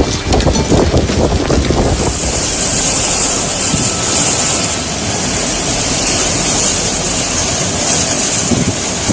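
Storm wind and heavy rain making a loud, continuous rushing hiss. Gusts buffet the microphone for the first couple of seconds, then the hiss turns steadier and brighter.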